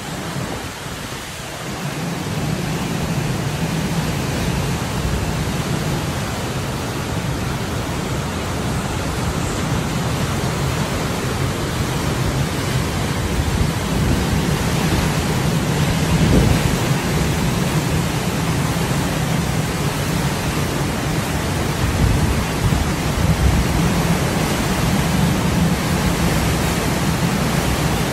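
Strong wind and heavy rain of a hurricane: a steady rushing noise with a low rumble of wind on the microphone. It grows louder about two seconds in and then swells and eases in gusts.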